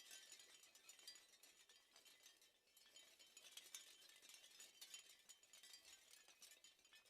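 Small bells on a wind chime tinkling in the wind, faint: many light, overlapping clinks with high ringing. The clinking thins briefly about two and a half seconds in, then picks up again.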